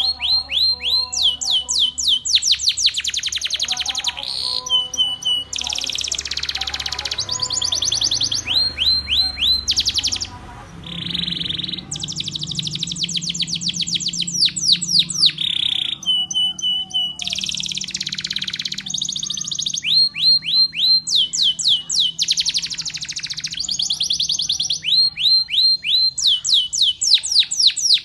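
Canary singing a long rolling song: fast trills of rapidly repeated notes sweeping down in pitch, broken by a few held whistled notes and short pauses.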